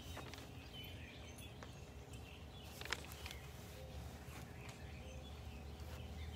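Faint outdoor dawn ambience: birds chirping here and there over a low steady rumble, with one sharp click about three seconds in.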